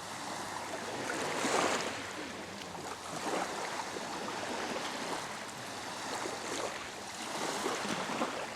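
Sea surf: waves breaking and washing on the shore, swelling louder every few seconds, with a fine crackling hiss as the water runs back.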